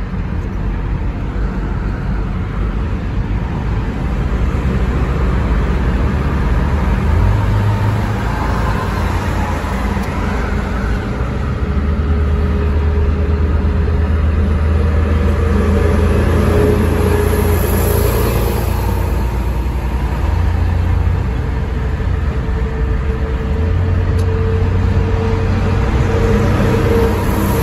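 Steady engine and tyre rumble heard inside a car's cabin while it drives along a busy multi-lane highway, with a low hum that swells now and then.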